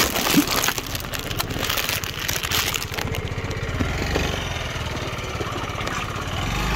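Yamaha Fascino scooter engine idling and ticking over at low speed. A rush of noise covers the first three seconds before the engine hum settles and grows a little louder near the end.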